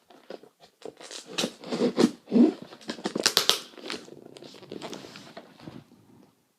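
A cardboard box being torn open and its packing handled by hand: irregular tearing, rustling and crinkling, busiest and loudest through the middle with a few sharp crackles.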